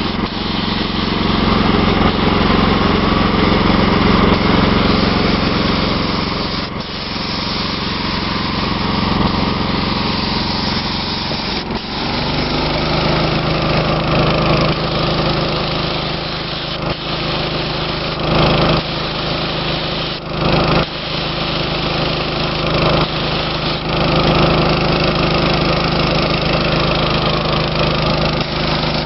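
An air compressor running steadily under the hiss of a paint spray gun spraying primer. The motor's pitch changes about twelve seconds in.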